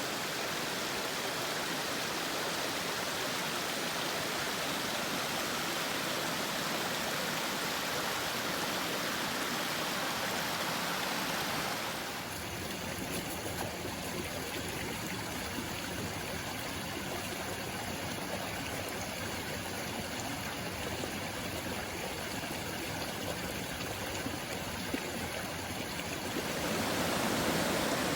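Steady rush of a mountain stream, with no break in the running water. About twelve seconds in, the tone of the rush shifts slightly.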